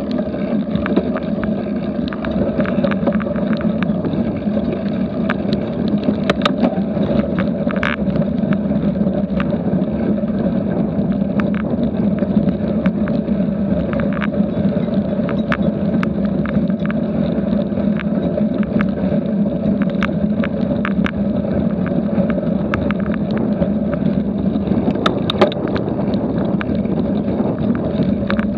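Cyclocross bike ridden fast over grass and gravel: a steady rumble of tyres and wind, with scattered sharp clicks and rattles from the bumpy ground.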